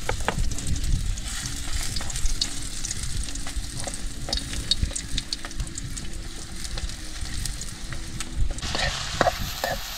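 Dried fish sizzling in hot oil in a steel wok, with a metal spoon scraping and clicking against the pan as the fish is stirred and turned. The sizzle grows louder near the end.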